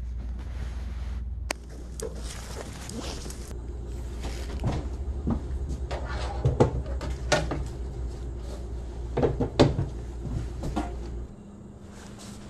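Kitchen cupboard doors and items being handled: a run of sharp knocks and clatter, loudest around six to ten seconds in, over a steady low rumble that stops near the end.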